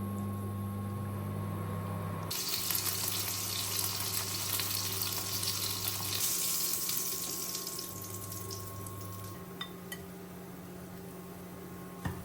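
Water running from a kitchen tap, turned on suddenly about two seconds in and tapering off after several seconds, over a steady low electrical hum.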